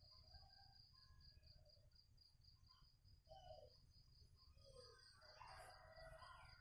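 Near silence, with a faint, steady, high chirping of an insect pulsing about four times a second in the background.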